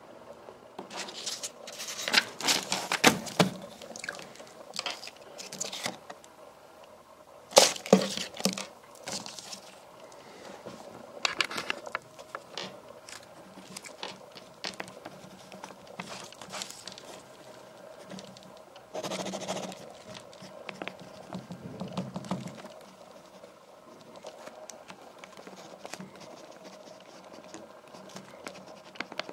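A pen scratching on the paper of a Moleskine notebook, with page rustling and handling close to the microphone. The noises come in irregular bursts, loudest a couple of seconds in and around eight seconds, over a faint steady hum.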